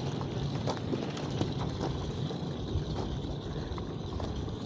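Luggage trolley wheels rolling over pavement: a steady low rumble with scattered light clicks.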